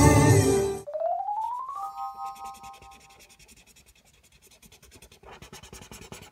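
Loud stage music cuts off just under a second in. A tone glides upward and holds briefly as a short chord. Then a felt-tip highlighter scratches across paper in quick strokes, louder near the end.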